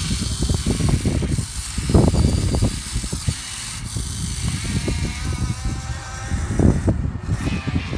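Huina 1580 radio-controlled excavator digging and moving dirt: irregular crunching and scraping of soil against the bucket, loudest about two seconds in and again near the end.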